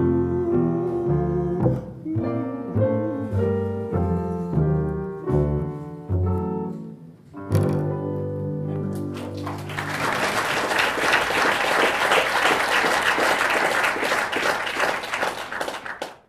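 Double bass and piano play the closing bars of a jazz song without singing, ending on a held final chord about seven and a half seconds in. Then the audience applauds until the sound cuts off suddenly near the end.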